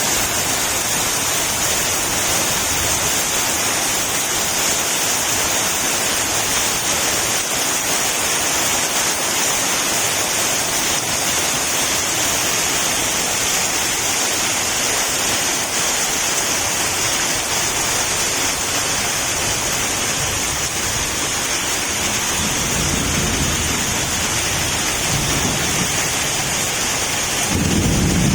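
Heavy rain pouring steadily, an even hiss. A low rumble builds in the last few seconds.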